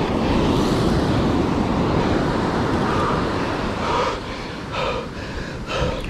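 Wind buffeting the microphone over the steady wash of surf on a beach.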